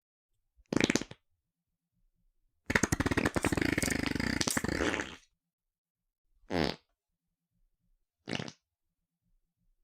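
Fart sound effects: four separate farts with silence between them, a short one about a second in, a long rattling one of about two and a half seconds, then two more short ones.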